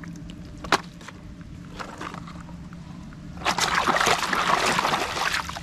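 Muddy water in a plastic basin being sloshed and splashed by a hand scrubbing a plastic toy train. The splashing starts loudly about three and a half seconds in. Before that there are light drips and a single sharp click.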